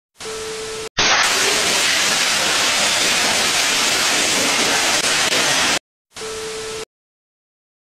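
TV-static glitch transition effect: a short burst of static with a steady beep tone, then a loud, even rushing hiss of static for nearly five seconds, then a second brief burst of static with the same beep.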